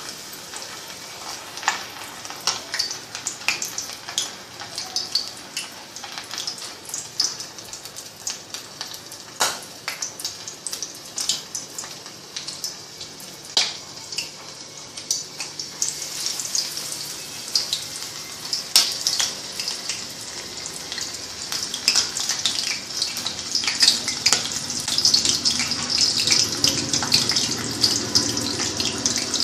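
Batter-coated prawns deep-frying in hot oil in a kadai: a steady sizzle with frequent small crackles and pops, growing louder and fuller over the last several seconds.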